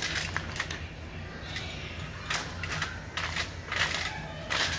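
Aluminium tin foil crinkling and rustling in short, irregular bursts as floured dumplings are gathered up off it by hand, over a steady low hum.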